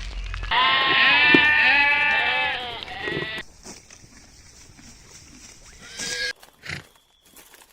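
A goat bleating: one long, loud, wavering bleat lasting about three seconds, followed by quieter barnyard background with a few faint short sounds.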